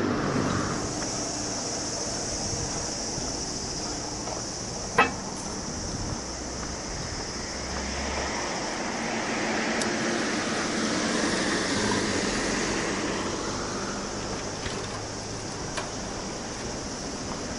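Roadside traffic noise: cars passing on a suburban road, over a steady high hiss, with one sharp click about five seconds in.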